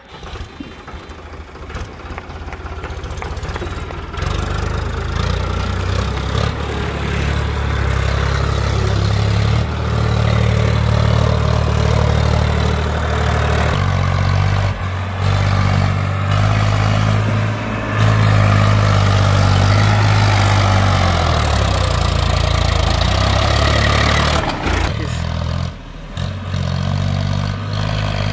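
Powertrac 434 tractor's three-cylinder diesel engine working under load, hauling a heavily loaded brick trailer. It grows louder over the first few seconds, then runs hard with its note rising and falling, and dips briefly near the end.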